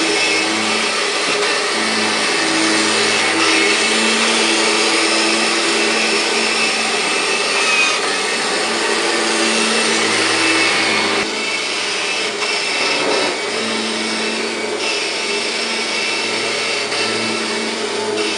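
Kirby G5 upright vacuum cleaner running on carpet. The motor is loud and steady, and its hum comes and goes as the machine is pushed back and forth. About eleven seconds in, the sound drops abruptly, a little quieter and duller.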